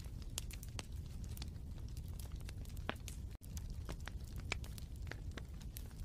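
Wood fire crackling in a fireplace: irregular sharp pops and snaps over a steady low rumble, with a split-second gap just past halfway.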